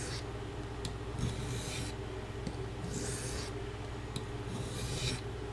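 A carbon-steel knife blade being stroked across a medium India sharpening stone, giving a hissy scrape on each pass. There are about four unhurried strokes, roughly one every second and a half.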